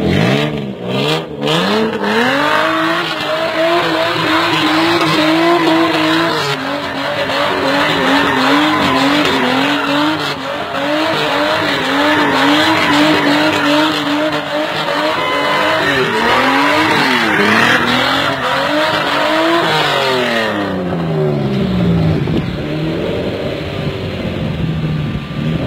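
Old Toyota car doing donuts: its engine revs up hard and is held at high revs, the pitch wavering, while the rear tyres spin and squeal on the loose surface. About 20 seconds in the revs fall away and the tyre noise stops, leaving the engine running at low revs.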